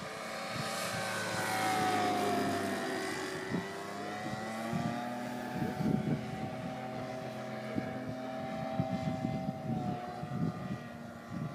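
Engine and propeller of a radio-controlled scale Sopwith biplane in flight, a steady drone whose pitch drops as the model passes by about two seconds in, then holds level.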